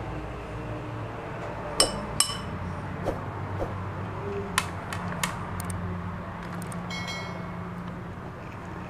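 A metal spoon clinking against a ceramic gravy bowl and plate as gravy is spooned onto a fried chicken chop: a handful of sharp clinks with a short ring, two close together about two seconds in, more spread through the rest and a small cluster near the end. A steady low hum runs underneath.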